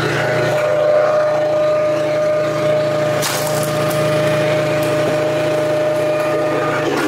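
Wolfe Ridge 35 HO hydraulic log splitter running steadily, its engine humming under a steady whine as ash rounds are split. A short burst of cracking wood comes about three seconds in.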